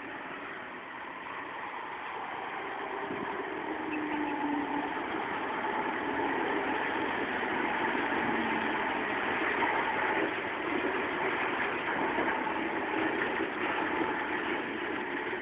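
Engine of a tractor-trailer truck running as it drives past at low speed, growing louder over the first few seconds and then holding steady.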